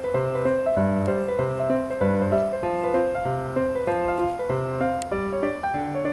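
Background piano music: a steady stream of notes with a low bass line in an even rhythm.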